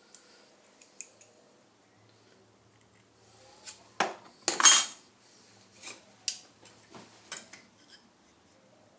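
Thin steel rules clinking and clattering as they are picked up, swung about and set down on a metal block and wooden board, with a few light clicks early on and the loudest clatter about four to five seconds in.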